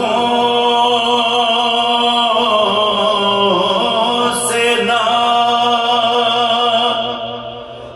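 Unaccompanied male voices singing a soz, a mournful Urdu elegy: the lead reciter's voice with the group joining in, holding long drawn-out notes that die away near the end.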